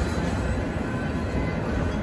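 Autorack freight cars rolling past on the rails, a steady rumble of wheels that eases slightly as the last car goes by and moves away.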